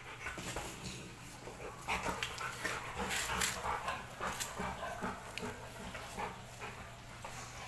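Belgian Malinois at play, giving short whines and yips among scuffling clicks. The activity is busiest from about two to four and a half seconds in.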